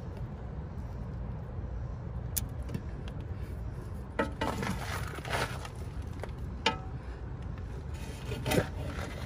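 Handling noises over a steady low outdoor rumble: about four seconds in, rustling and scraping begin, with a few sharp clicks, the loudest near the end.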